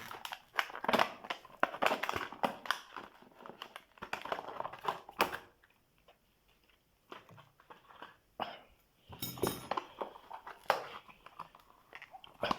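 Packaging being cut and pulled open by hand to unwrap a heavy motorcycle wheel lock: irregular rustling, scraping and sharp clicks, with a couple of short pauses.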